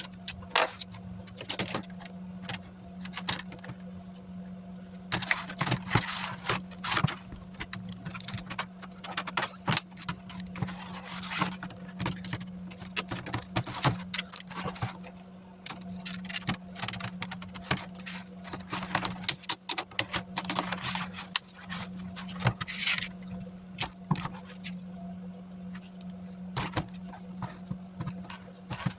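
Irregular clicks, taps and rattles of hard plastic laptop screen parts being handled and pressed together while the screen wiring and bezel are refitted, over a steady low hum.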